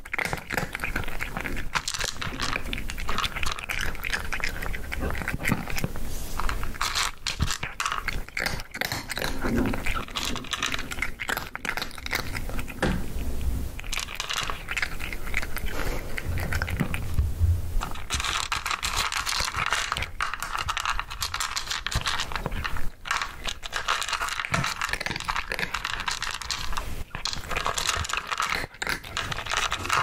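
A cat crunching and chewing dry kibble, a dense run of crisp crunches that barely lets up.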